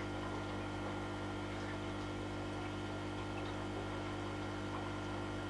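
Aquarium pump running: a steady low hum with a faint high tone over it.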